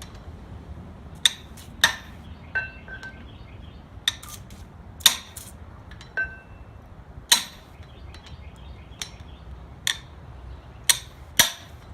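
A hammer striking a breaker bar about a dozen times at irregular intervals, sharp metallic blows with a brief ring, to shock loose a flywheel bolt on an LS1 V8 crankshaft.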